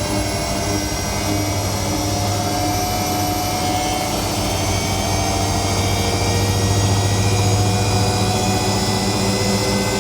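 Whirlpool Indiana 1400 washing machine on its spin cycle: a steady low hum, with a motor whine that rises slowly in pitch as the drum spins up toward 1400 RPM.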